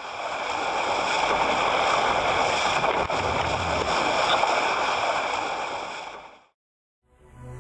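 Rushing, water-like noise of a logo sound effect that fades in, holds steady for about six seconds, then fades out. The noise carries a hollow, ringing edge.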